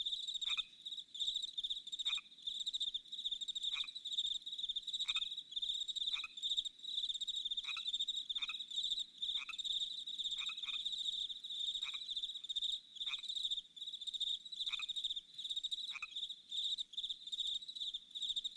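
Chorus of calling frogs and insects: a continuous high, pulsing trill, with short falling chirps about every second or so.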